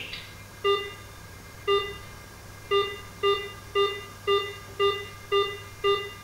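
Snooper Sapphire speed-camera detector beeping: short identical electronic beeps, the first two about a second apart, then quickening to about two a second, as it does when warning of a speed camera drawing closer.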